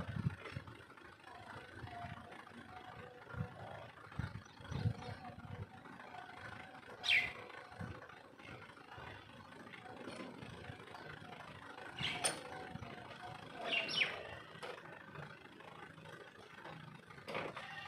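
Faint steady hum of a tractor engine running, with a few dull thumps early on; a bird gives a sharp descending call three times, the loudest sounds, once about seven seconds in and twice more a few seconds later.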